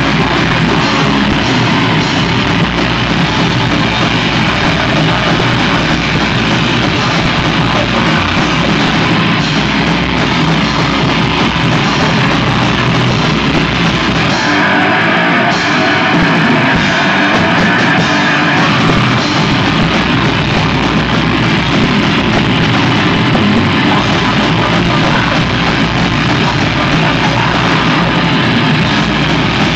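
Crust punk band playing live at full volume: guitars and a drum kit in a dense wall of sound, with a screamed lead vocal. The lowest notes drop away for a few seconds around the middle before the full band comes back in.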